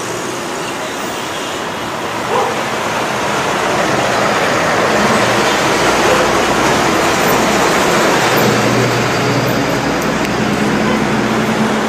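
Street traffic noise: a steady rush of passing vehicles that grows louder a few seconds in, with a low engine hum coming up from about five seconds.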